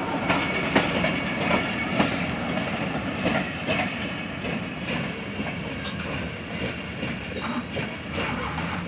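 Pakistan Railways passenger train rolling past, a steady rumble with irregular knocks of the wheels over rail joints, slowly fading as the train pulls away from the station.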